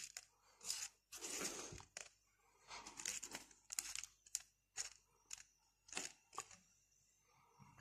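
Fingertips rubbing and scratching on a sheet of paper as they push small hard lumps around: a string of short, irregular rustles that stop in the last second.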